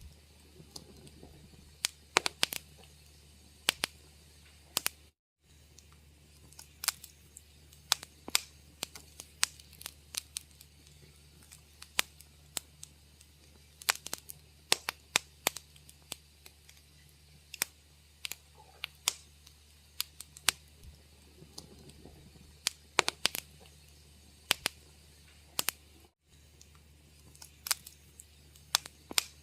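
Wood fire crackling in a fireplace: irregular sharp pops and snaps, some loud and some faint, over a low steady hum. The sound cuts out for a split second twice.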